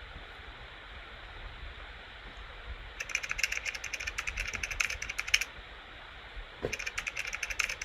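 Rapid typing on a computer keyboard: two bursts of quick, irregular key clicks, each lasting a couple of seconds, over a low steady hiss.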